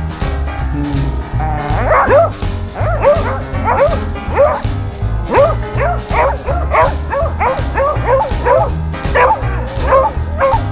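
A beagle giving a rapid string of short, pitch-bending yips and whines, several a second, starting about a second and a half in, over background music.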